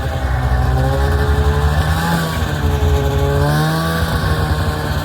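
Snowmobile engine running steadily under load, its pitch rising and falling a little as the throttle varies.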